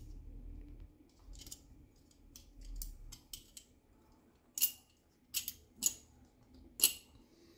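Light clicks and taps from handling a 1.9-inch RC crawler beadlock wheel and fitting it into its rubber tyre. A few scattered soft clicks come first, then four sharper ones in the second half.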